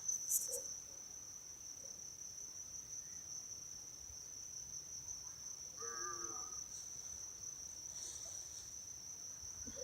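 An insect trilling: one steady, unbroken high-pitched note.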